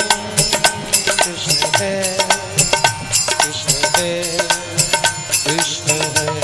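Indian devotional bhajan music: harmonium chords held under a quick, steady tabla rhythm.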